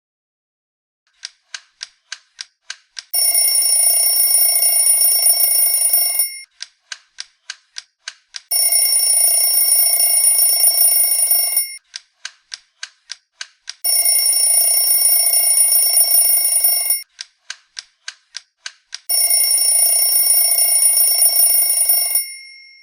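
Alarm clock ticking, about three ticks a second, then its bell ringing for about three seconds; the tick-then-ring pattern repeats four times, and the last ring dies away near the end.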